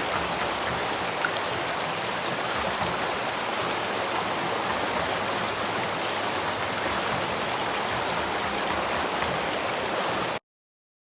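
Headwater stream running, a steady rush of flowing water that cuts off abruptly near the end.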